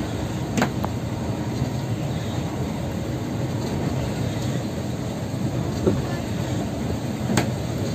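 Steady engine and road rumble heard inside a moving coach bus cabin, with two sharp clicks, one just after the start and one near the end.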